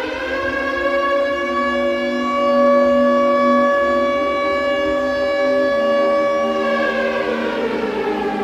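Air-raid siren wailing: it rises to a steady high pitch in the first half second, holds it, then starts winding down about seven seconds in, over a low sustained tone.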